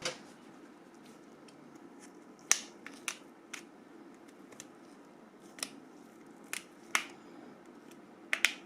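Small, sharp plastic clicks and snaps, about eight or nine at irregular intervals, as the clamps holding a Nokia 5530's touchscreen are worked loose during disassembly.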